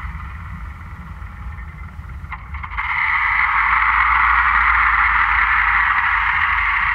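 Experimental dark-ambient soundscape: a steady low drone under a band of filtered hiss. The hiss swells sharply louder about three seconds in, just after a couple of faint clicks.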